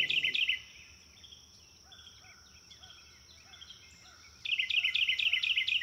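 Small songbird chirping in quick runs of high twittering notes, about eight a second, near the start and again near the end, with fainter chirping between.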